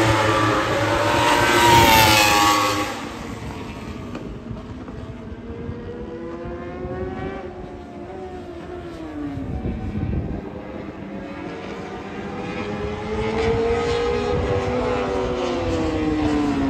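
Racing superbike engines on the circuit at high revs, their pitch rising and falling as the bikes pass. A loud pass in the first three seconds, then fainter engines further off, one dropping in pitch about ten seconds in and another climbing and falling away near the end.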